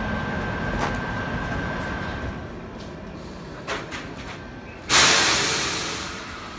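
Standing train at a station: a low steady rumble with a few sharp clicks, then about five seconds in a sudden loud hiss of compressed air from the train's air brakes that fades away over a second or so.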